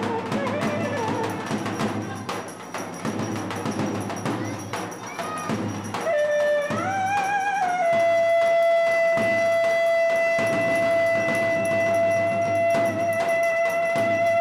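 Folk dance music with drums and a melody instrument. About six seconds in, the melody slides up to one long note that is held steadily for about six seconds over the drumming.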